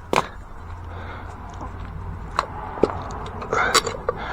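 Hand tools and small metal parts being handled: one sharp knock just after the start, then a few scattered clicks and clinks.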